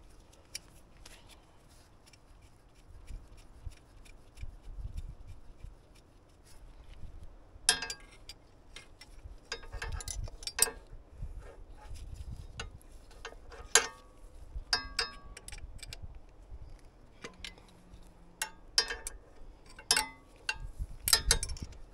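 Metal hand tools clicking and clinking against the engine's brackets as the lock nut on the AC compressor is tightened. There are faint scattered ticks at first, then from about eight seconds in a run of sharp, irregular metallic clicks and clinks, some ringing briefly.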